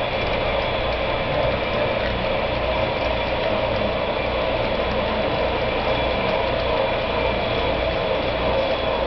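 HO scale model coal train rolling slowly along the track, its hopper cars' wheels giving a steady, even rattle.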